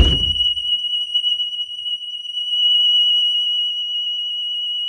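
DSC Impassa alarm siren going off in a steady, loud, high-pitched tone the instant the door's shock sensor is tripped. The thump of the blow on the door is heard right at the start.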